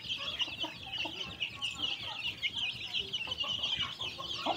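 A flock of young chickens peeping continuously in a dense, high chorus, with a few lower clucks mixed in.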